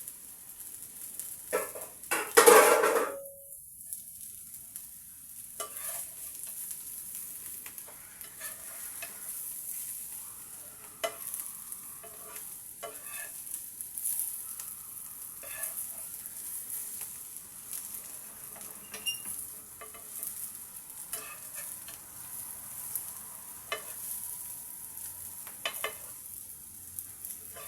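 Fish frying in hot oil in a frying pan, with a steady high sizzle. A utensil knocks and scrapes against the pan now and then. There is a loud burst of sizzle and clatter about two seconds in.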